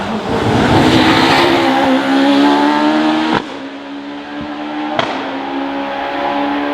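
Hillclimb racing car passing close at full throttle, then its engine note going on steadily up the hill. Two sharp cracks come about three and a half and five seconds in.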